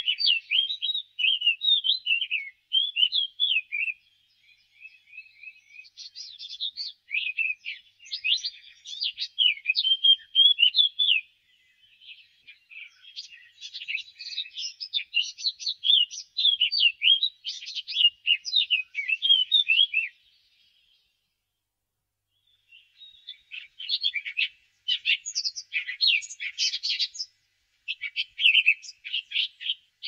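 Eurasian blackcap singing: bouts of rapid, varied, high warbling lasting several seconds each, broken by short pauses of one to three seconds.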